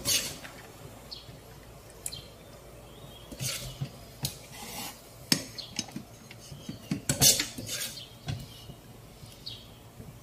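A metal serving spoon scraping and clinking against a cooking pot, scooping out the last of the broth, in irregular strokes that are loudest about seven seconds in.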